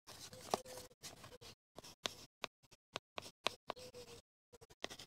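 Scattered light clicks and taps of small objects being handled at a workbench, irregular and quiet, with short silent gaps between them.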